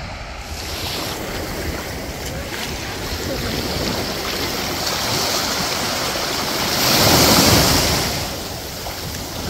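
Small waves washing up onto the sand at the water's edge. The wash is steady, and one wave surges in about seven seconds in, the loudest moment, then ebbs.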